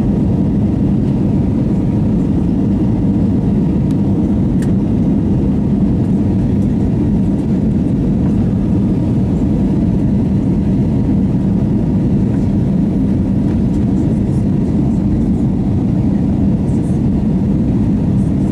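Cabin noise inside an Airbus A321neo in flight: the steady low drone of the engines and the airflow over the fuselage, with a constant hum.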